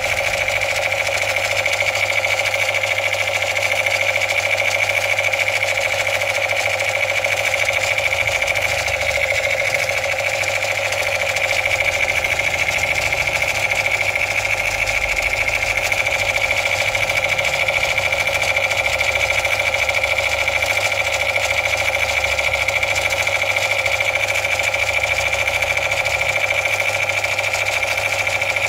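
Battery-powered light-up toy gun sounding its electronic gunfire effect through its small speaker: a steady, fast rattling buzz held without a break.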